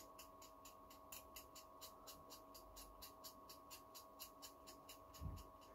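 Near silence: a faint steady electrical hum with a soft, even ticking of about five ticks a second, and one soft low bump near the end.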